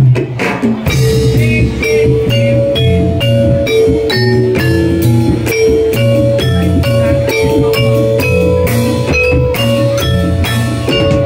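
Javanese gamelan music for a jathilan trance dance: bronze metallophones struck with mallets play a quick, even run of ringing notes over drums and a low bass line.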